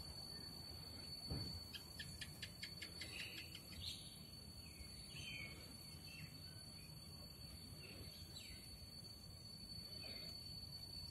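Faint outdoor background with scattered short bird chirps. A low thump comes about a second in, then a quick run of about ten light clicks, over a faint steady high tone.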